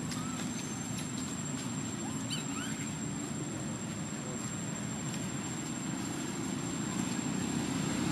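Outdoor ambience: a steady low rumble with a thin, steady high whine above it, and a few short high chirps about two and a half seconds in.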